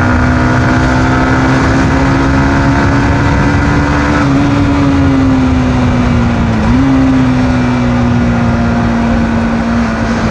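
Yamaha MT-15's 155 cc single-cylinder engine running on its stock exhaust while riding with two people aboard. The engine note climbs gently for about four seconds, then eases off, and about two-thirds of the way through it dips sharply and picks up again.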